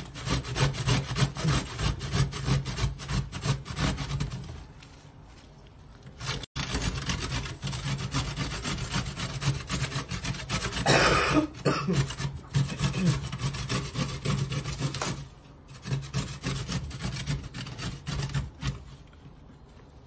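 Radish being grated on a metal box grater: quick, rhythmic rasping strokes against the blades, stopping briefly a few times. A short louder sound breaks in about eleven seconds in.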